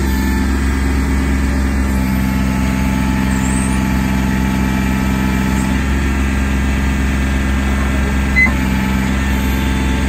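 Kubota B26 backhoe loader's diesel engine running steadily as the backhoe arm is worked, with one short click about eight and a half seconds in.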